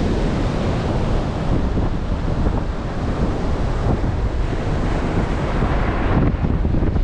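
Strong blizzard wind buffeting the microphone: a dense, steady rumble.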